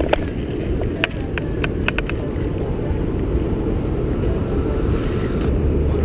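A steady low rumble, with scattered sharp clicks and scrapes from the action camera being handled and moved.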